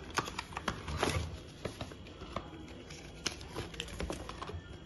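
Cardboard and plastic packaging being handled: a phone box's small cardboard accessory pack opened and a clear plastic sleeve and paper envelope taken out, giving a run of small irregular clicks, taps and rustles, the sharpest about one second in and a little after three seconds.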